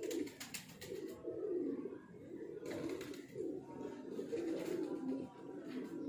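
Pigeons cooing: a run of low, wavering coos one after another, with a few light clicks in the first second.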